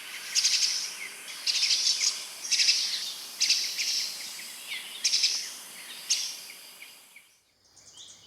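Yellow-eared spiderhunter calling: a run of short, high chattering bursts, about one a second, that stops about seven seconds in.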